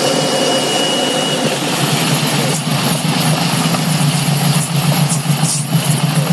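Grass chopper machine running with a steady, loud engine hum.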